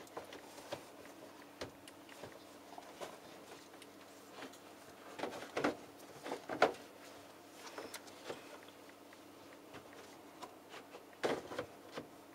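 Scattered plastic clicks and knocks of a heat pump dryer's lint filter being handled and pushed at its slot, failing to seat properly. A faint steady hum runs underneath.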